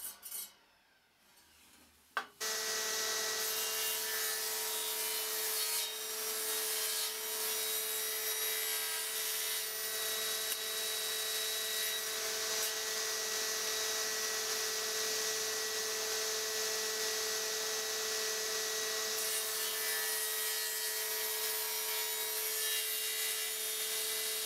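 Table saw running steadily while it bevels a block of solid beech: a steady hum with a whine on top. After a short near silence and a click, it comes in abruptly about two seconds in.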